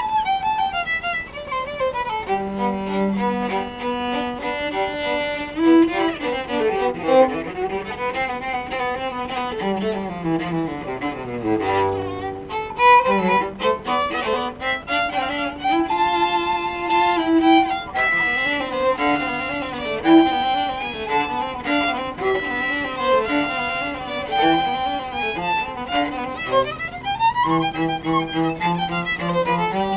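Violin and cello playing live together: quick runs up and down the scale between held notes, with the lowest notes sweeping down near the middle.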